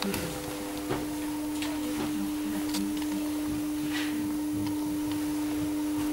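Steady machine hum, a single low droning tone, with scattered light footsteps and small knocks.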